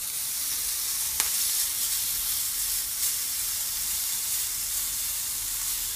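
Skewered minced-beef köfte sizzling steadily in a hot ridged grill pan as they are turned, with a brief click about a second in.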